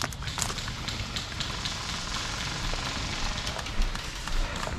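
Steady rustling, crackling noise with a deep rumble underneath, and a few sharp clicks at the start.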